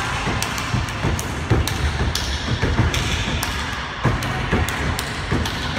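A step team stomping on a stage floor in unison: a run of heavy thuds and sharp strikes in an uneven, syncopated beat.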